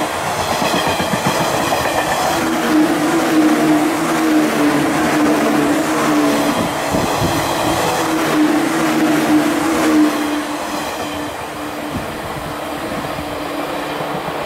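JR 185 series electric multiple unit passing close by: a steady hum with a higher whine over the running rumble. The level drops about eleven seconds in as the last cars go by.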